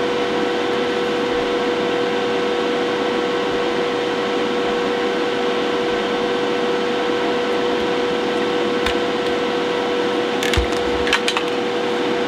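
Steady hum with a hiss from bench equipment, holding one tone throughout, with a few light clicks near the end as the board is handled.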